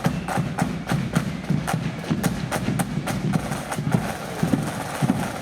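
Marching band drums playing: crisp snare-drum strokes at about three a second over a low drum rumble.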